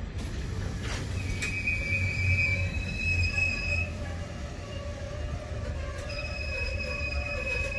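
Engineers' freight train of open box wagons rolling past: a steady low rumble of wagon wheels and bogies, with a high wheel squeal that comes in about a second and a half in, fades, and returns near the end. There are a couple of sharp clicks around the one-second mark.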